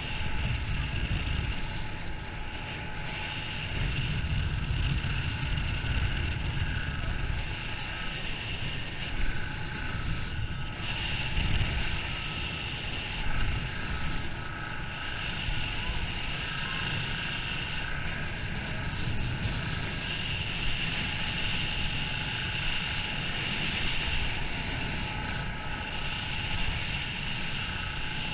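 Wind buffeting a head-mounted camera's microphone in gusts, over a steady mechanical hum like a running engine.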